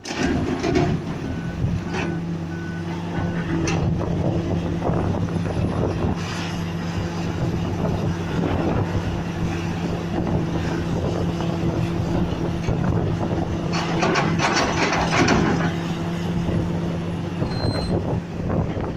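Diesel engine of a heavy road-construction machine running steadily, with a reversing alarm beeping four times in the first few seconds. A louder, noisier stretch comes about three-quarters of the way through, and a single short high beep near the end.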